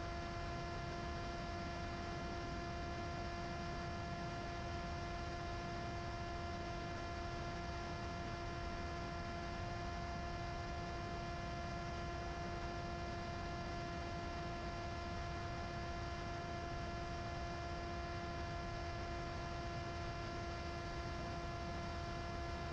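Steady whining hum at one fixed pitch with a ladder of overtones, unchanging throughout.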